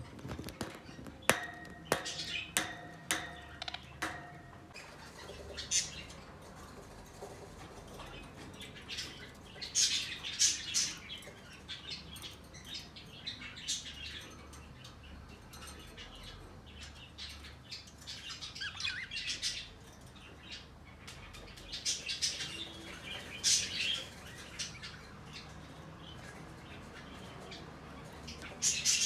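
A bird chirping in short scattered bursts, with several sharp clicks or taps in the first few seconds.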